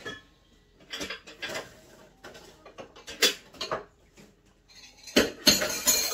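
Kitchen containers and utensils being handled at a counter: scattered clinks and knocks, then a louder clattering rattle about five seconds in.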